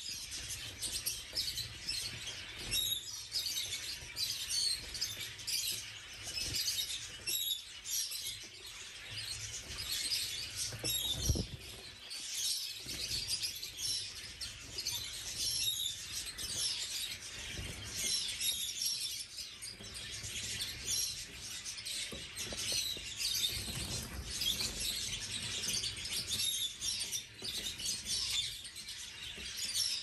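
A flock of canaries chirping and singing together: a dense, continuous stream of short high chirps and trills from many birds at once. There is one brief low thump about eleven seconds in.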